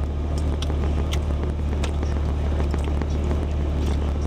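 Steady low drone of a Jeep idling with its air conditioning on, heard from inside the cabin, with scattered small clicks of chewing close to the microphone.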